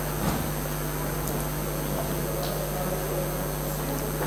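Steady electrical hum and hiss from a lecture hall's sound system, with a faint knock about a third of a second in and a couple of faint clicks.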